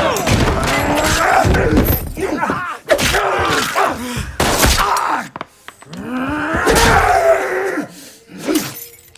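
Film fight sound: men groaning and crying out amid blows, thuds and crashes. The cries come in several drawn-out bursts, the longest about two-thirds of the way in, and the sound drops away near the end.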